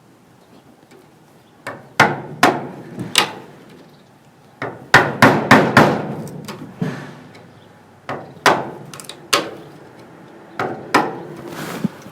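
Hammer blows, about seventeen in four quick bursts of three to five, driving a flat screwdriver like a chisel to cut through a wall panel.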